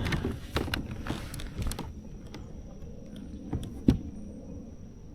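Gear being handled in a fishing kayak: a cluster of knocks and rattles for about two seconds, then quieter, with one sharp knock near four seconds.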